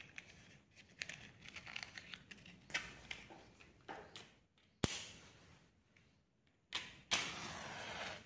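Small clicks and rattles of a matchbox being handled, with one sharp click about halfway through. Near the end a match is struck, a short scrape and then a second that catches and flares with a hiss for about a second.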